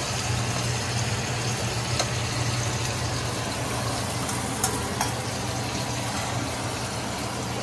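Steady sizzle of food frying in hot fat, with a few faint clicks.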